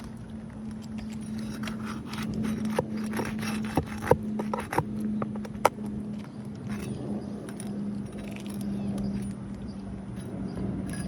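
Flat pry bar scraping under asphalt shingles and knocking against roofing nails, with a few sharp metallic clicks about halfway through. A steady low hum runs underneath.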